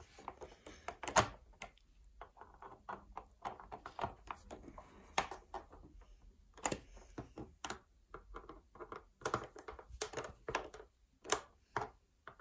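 Hand screwdriver tightening screws into the rear panel of a Marantz TT451 turntable: a run of irregular small clicks and taps, with a louder knock about a second in.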